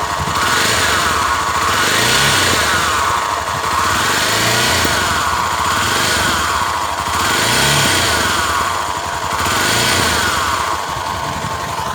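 Honda XR250 Tornado's single-cylinder engine, heard close to its right side, running and revved up a little several times. Under it runs a rubbing hum (zumbido) that shows at low revs, which the owner suspects comes from worn cam chain guides.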